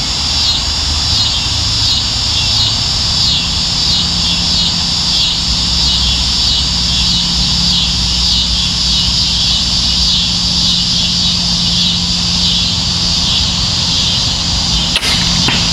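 Steady insect chorus pulsing about twice a second over a low steady rumble; about fifteen seconds in, a single sharp snap of a crossbow being fired.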